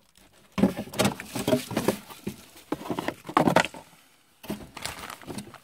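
Handling noise: irregular crinkling, rustling and light clicks of plastic packaging being handled, with a short lull partway through.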